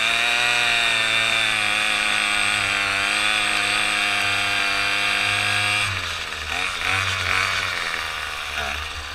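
Small gasoline engine running at a steady speed. About six seconds in, its note breaks up and wavers unevenly.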